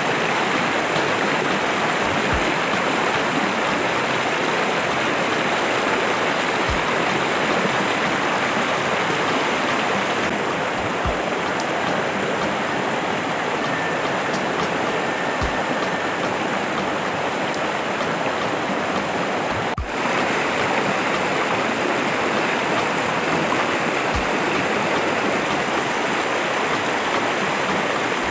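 Shallow, rocky river rushing over boulders and a low weir cascade: a steady, loud rush of water.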